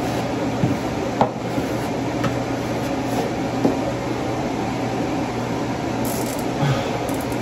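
Steady fan-like hum, with a few faint ticks and soft rubs from a damp sponge wiping down freshly hung wallpaper.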